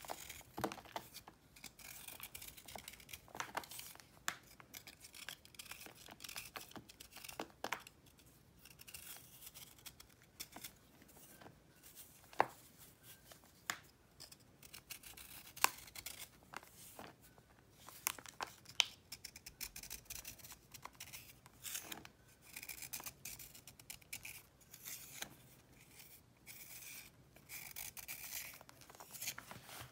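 Utility knife blade shaving a block of crunchy pressed powder: dry scraping with frequent sharp crackles and snaps as flakes break off and fall.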